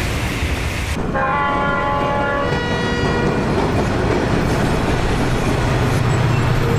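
A passing train's rumble cuts off about a second in, and a locomotive horn sounds a chord of several notes for about a second and a half. Near the end a locomotive engine's low drone builds.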